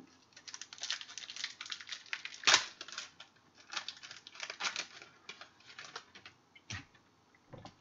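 Football trading cards being handled in a box break: a quick run of light clicking and rustling as cards are flipped and pack wrappers handled. A louder snap comes about two and a half seconds in and another near seven seconds.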